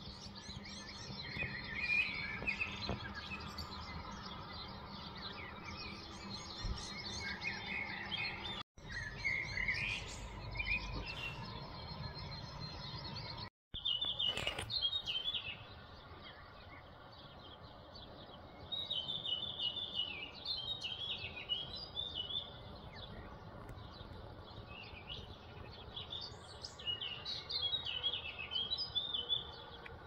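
Several songbirds chirping and singing in the morning, in short, quick phrases, over a low background rumble that fades about halfway through. The sound cuts out for an instant twice.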